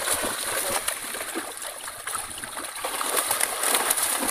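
A large catch of fish thrashing in a hand-held net in shallow water, with continuous, irregular splashing and spattering.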